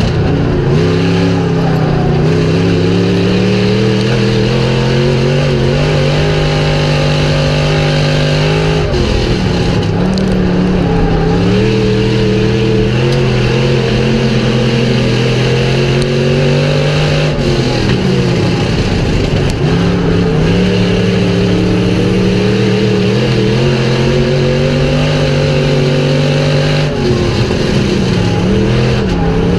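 IMCA stock car's V8 engine at racing speed, heard from inside the cockpit: the revs climb steadily along each straight and drop sharply when the driver lifts for the corners, three times about nine seconds apart.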